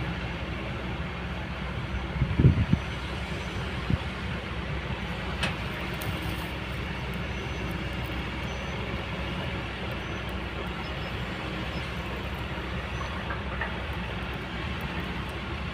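Kobelco excavator's diesel engine running steadily, with a cluster of loud knocks a couple of seconds in and another single knock about four seconds in.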